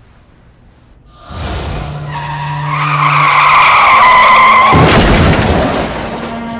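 Car tyres skidding with a long, loud screech that sags slightly in pitch, followed near the end by a heavy crash impact.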